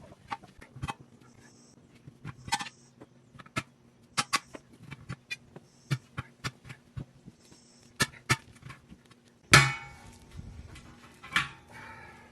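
Homemade steel tire spoons clinking and clanking against a backhoe wheel's steel rim while the tire bead is pried over it, in irregular sharp knocks. A louder metal clank with a short ring comes about nine and a half seconds in, and another near the end.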